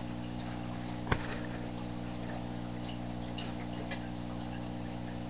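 Steady electrical hum of aquarium equipment, a filter or air pump running, with one sharp click about a second in, a smaller click near the end and faint scattered ticks.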